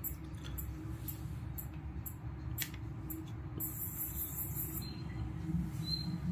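Small birds chirping: scattered short, very high chirps and ticks, with a brief hiss a little under four seconds in and a few clearer chirps near the end, over a steady low background hum.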